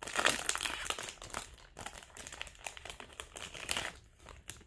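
Baseball card pack wrapper crinkling as it is handled: a run of irregular crackles that thins out near the end.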